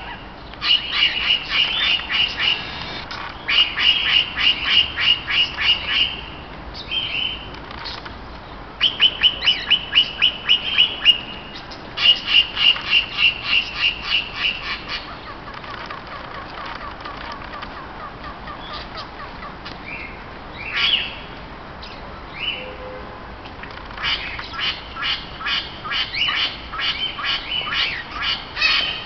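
Parrots (regent parrots with an eastern rosella) calling in fast runs of repeated chattering notes, about five a second, in bursts of a few seconds. There is a quieter stretch in the middle with only a few single calls, and the chatter picks up again near the end.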